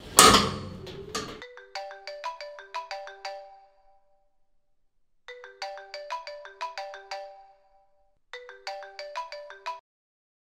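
A smartphone ringing for an incoming call: a short ringtone tune of quick notes, played three times with pauses between. It opens with a loud burst of noise lasting about a second.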